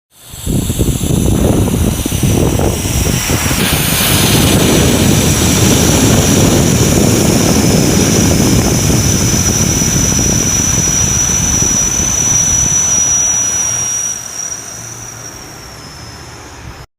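Jet aircraft engines at takeoff thrust: a loud, steady roar under a high-pitched whine. It builds up quickly out of silence, drops away about fourteen seconds in, and cuts off abruptly.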